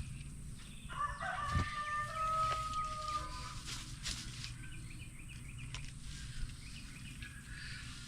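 One long animal call: a single held note with overtones, lasting about two and a half seconds, starting about a second in, over a low steady hum.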